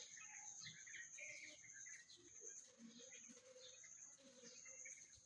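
Near silence: a faint steady high-pitched whine with scattered soft bird chirps.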